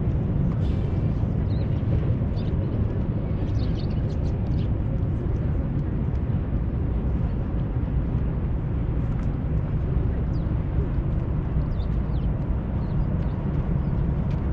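Steady low outdoor rumble with faint, scattered high ticks over it.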